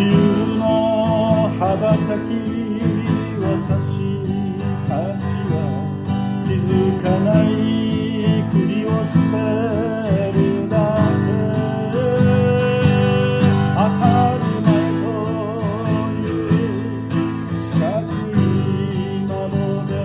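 A man singing with vibrato, accompanying himself on a strummed acoustic guitar.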